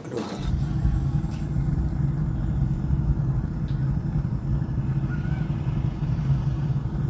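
An engine running steadily with an even low drone, starting just after a sudden cut.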